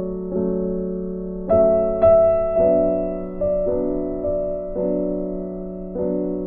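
Background keyboard music: slow, held piano-like chords, a new chord struck roughly once a second.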